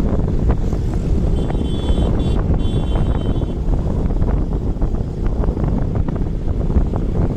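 Wind buffeting a phone's microphone: a loud, uneven low rumble. A faint high tone sounds briefly a second or two in.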